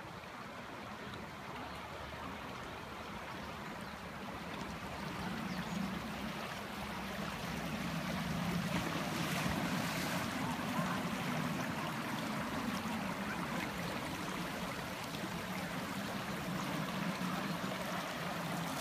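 Shallow river running over a stony bed, a steady rushing that grows gradually louder.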